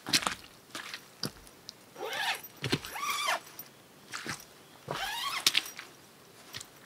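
Footsteps crackling on twigs and forest litter, with the nylon fabric of a camping hammock and its underquilt rustling and swishing twice as it is handled.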